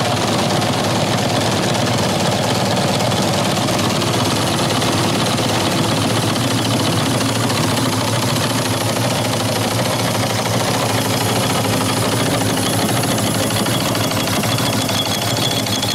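The two small cast-iron steam engines of a quarter-scale steam donkey running steadily on about 25 psi of steam. Their exhaust beats rapidly and evenly over a steady hiss of steam.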